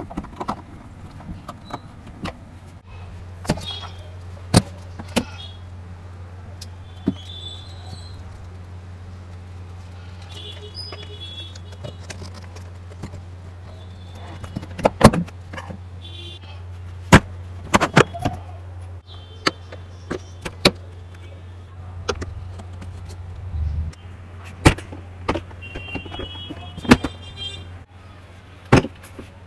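Scattered sharp clicks and knocks of hard plastic parts and a screwdriver as a ride-on toy jeep is assembled: the seat screwed down and the steering wheel fitted. A steady low hum runs underneath.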